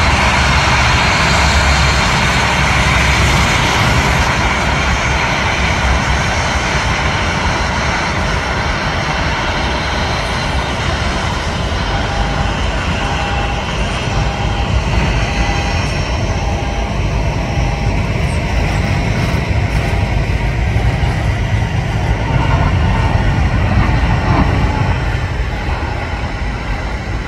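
Airbus A350's twin Rolls-Royce Trent XWB turbofans at takeoff thrust: loud, steady jet noise through the takeoff roll and lift-off.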